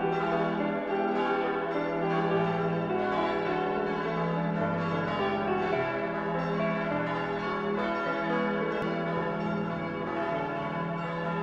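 Bells ringing in a steady repeating pattern over sustained tones, with a low tone that changes pitch every couple of seconds.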